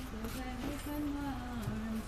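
A woman humming a slow tune, holding long notes that step up and down in pitch.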